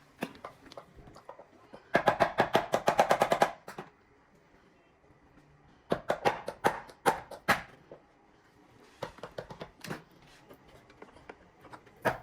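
Rapid mechanical rattling: two bursts of sharp clicks at about a dozen a second, each about a second and a half long, starting about two seconds in and again about six seconds in, with scattered single clicks between and near the end.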